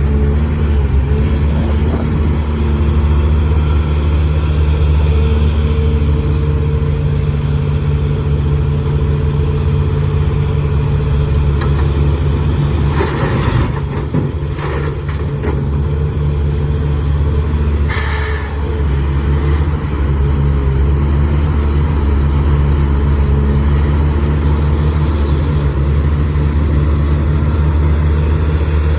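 Heavy diesel engine running steadily with a low drone, with a few short hisses around the middle.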